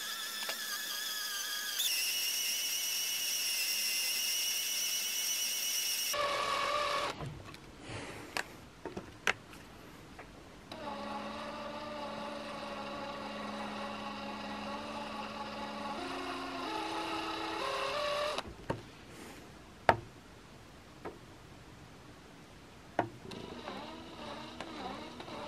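Cordless drill with a screw extractor bit biting into screw heads, its motor whine played back sped up, running in several bursts that step up and down in pitch. Between the runs come a few sharp clicks, the loudest about two-thirds of the way through.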